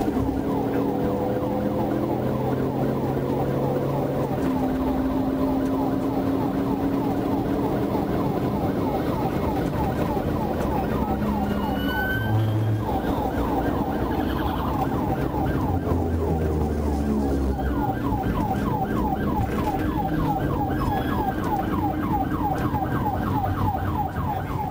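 Police patrol car siren on a fast yelp, sweeping up and down several times a second, over the car's engine and road noise.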